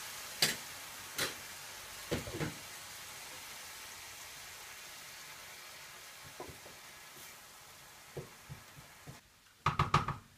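Sauerkraut sizzling with a steady hiss in a frying pan as it braises with a little added broth, with scattered knocks and scrapes of a wooden spatula stirring it against the pan. The hiss slowly fades, and near the end comes a quick run of louder knocks.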